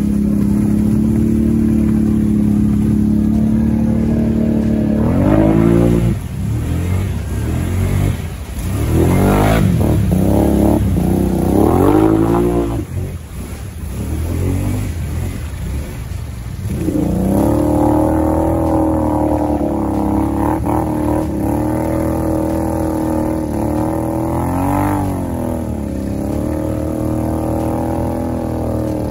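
ATV engines running and revving as the quads plow through deep mud and water. The engine note holds steady at first, then rises and falls with the throttle several times in the middle, and runs steadier and higher-pitched in the last part, with one more rev near the end.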